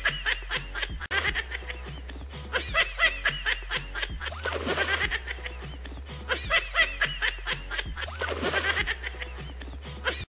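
Laughter sound effect looped over background music with a steady bass line, the same burst of high-pitched laughing repeating about every four seconds.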